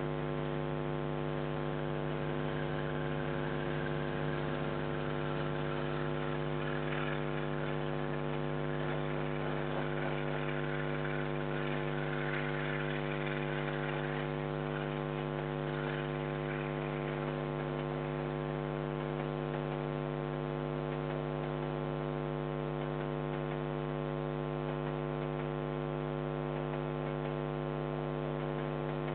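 Steady electrical mains hum with a buzzy stack of overtones, picked up by the security camera's audio. A faint hiss rises and fades under it in the first half.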